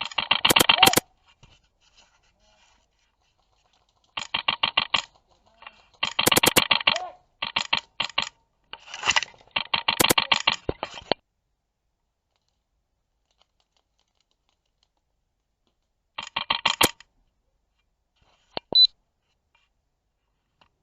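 An HPA-powered Wolverine MTW airsoft rifle firing in rapid strings of sharp clicking shots, about a dozen a second, in several bursts with pauses between them and a couple of single shots near the end.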